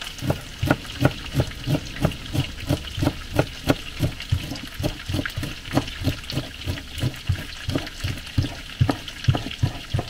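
Kitchen knife chopping fresh dill on a wooden cutting board: steady, even knocks of the blade on the board, about three a second, over a steady background hiss.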